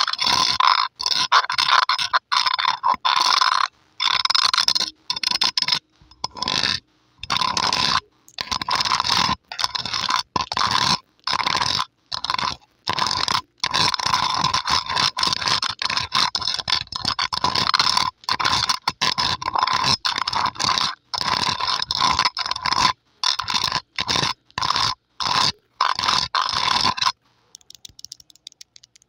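Long polished fingernails scratching across the metal mesh grille of a microphone, close up, in quick strokes broken by short pauses. The scratching stops abruptly near the end, leaving only a few faint ticks.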